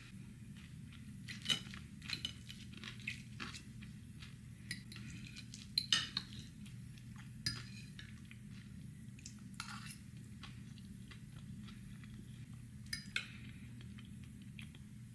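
A metal fork clinking and scraping on a dinner plate while scooping hash brown casserole: scattered light clicks and scrapes, a few louder ones, over a steady low hum.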